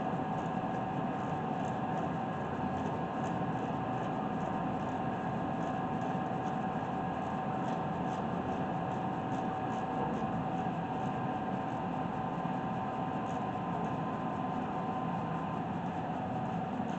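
A steady machine hum with a constant tone, over which a hand ratchet clicks faintly and quickly as it tightens the brake caliper bolts, the ticks thinning out after about ten seconds.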